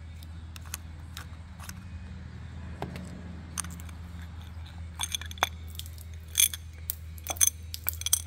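Light metal clicks and clinks as screws come out of a submersible well pump motor's metal butt cap and the cap is pulled off, with louder ringing clinks in the second half. A steady low hum runs underneath.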